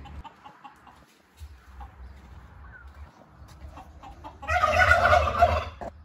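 Several turkeys gobbling together in one loud burst of about a second and a half, near the end, after a few quiet seconds.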